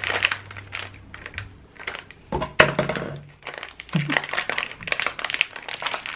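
Crinkling and rustling of snack packaging being handled and opened: a bag of potato chips taken out of its box, with many short crackles.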